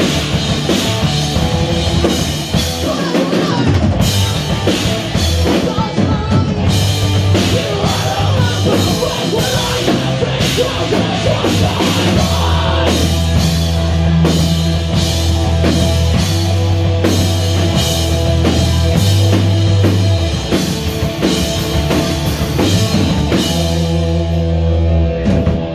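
Live rock band playing loudly: electric guitars, bass guitar and a drum kit pounding through a full-band section.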